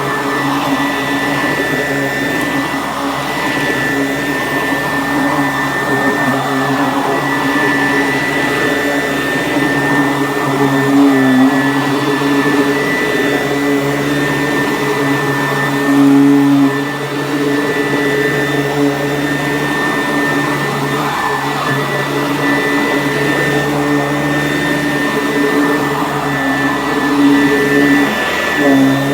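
Sanitaire S663 vacuum cleaner running steadily while vacuuming: a continuous motor drone with a high whine, its pitch and loudness shifting briefly a couple of times, around a third and just past halfway through.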